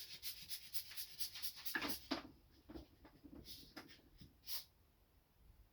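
Faint, quick scratchy clicks for about two seconds, then a few scattered soft ticks, from handling and squeezing a bottle of thick wood glue that is slow to come out.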